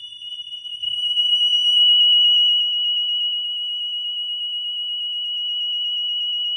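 DSC Impassa wireless alarm panel's built-in siren sounding one steady, high-pitched tone with a slight warble: the intrusion alarm set off by tripping a sensor while the system is armed. A few faint knocks come about a second in.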